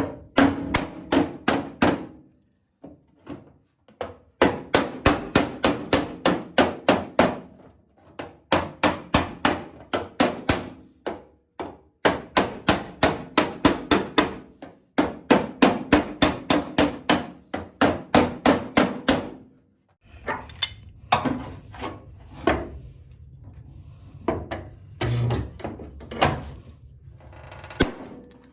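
Body hammer beating the steel rear quarter panel of a 1977 Chevy Camaro against a dolly to work out a dent, in fast runs of about four blows a second broken by short pauses. For the last eight seconds or so the blows are fewer and scattered.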